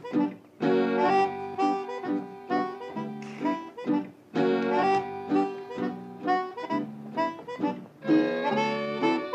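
Background music cue led by a harmonica playing short chordal phrases over a steady rhythm, with brief breaks between phrases.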